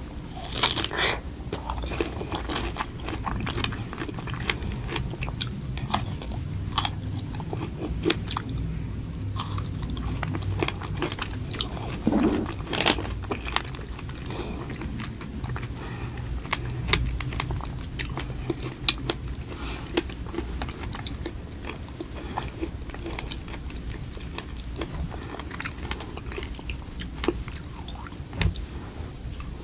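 Close-miked eating: repeated bites and chewing with crunchy, crackling mouth sounds, a louder burst of crunches about halfway through.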